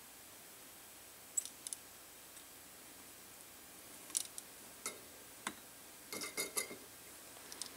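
Faint, scattered small clicks and taps of hand-soldering a circuit board: the soldering iron tip and solder wire touching the component pins, then a short cluster of taps with a slight metallic ring as the iron is put down, about six seconds in.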